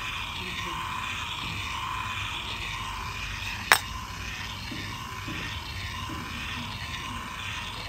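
Small electric motor of a miniature toy cement mixer running steadily, whirring as it turns the plastic drum with toy vegetables tumbling inside. A single sharp click a little under four seconds in.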